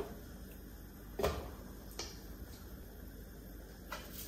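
A few light knocks and clunks from handling kitchen containers and utensils while sugar is layered over apricots in a pot. The loudest comes about a second in, with fainter ones later.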